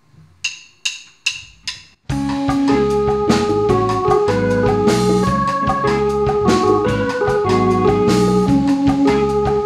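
A four-beat count-in of sharp clicks, then about two seconds in a pop/rock band comes in together: organ-sounding keyboard chords over drums, bass and guitar.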